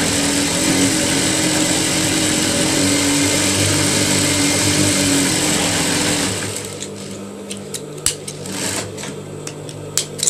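Sewing machine running steadily as it stitches a seam through the fabric, stopping about six seconds in; a few light clicks follow.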